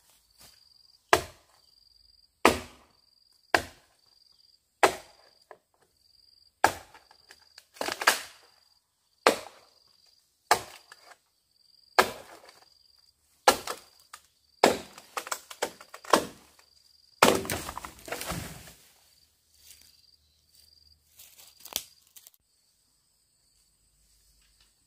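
Bamboo being chopped with a blade: a dozen or so sharp strokes, about one every 1.3 seconds, then a longer rustling crash about two-thirds of the way through, followed by a few lighter knocks. An insect chirps in short, evenly spaced pulses throughout.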